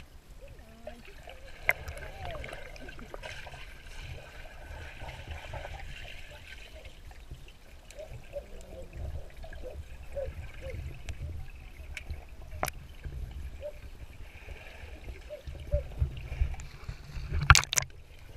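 Swimming-pool water heard through a camera held underwater: splashing and gurgling from swimmers over a steady low rumble, with a few sharp clicks and a louder knock near the end.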